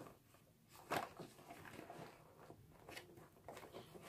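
Faint clicks and light taps of small objects being handled, the loudest about a second in, over quiet room tone.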